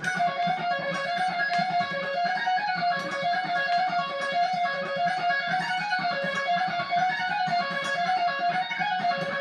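Stratocaster-style electric guitar playing a fast, repeating wide-interval-stretch lick with unison notes. It sounds really busy and dizzy.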